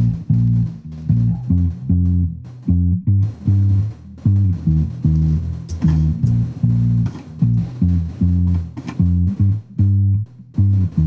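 Electric bass guitar track playing back on its own: a rhythmic line of short, punchy low notes with brief gaps, heavily compressed so the notes sit at an even, stable level.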